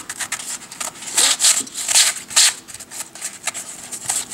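A 3D-printed plastic twisty puzzle being turned by hand: an irregular run of quick clicks and scrapes as its pieces turn against each other.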